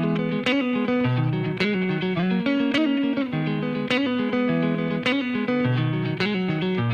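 Background music: an electric guitar playing a repeating picked riff, with no drums yet.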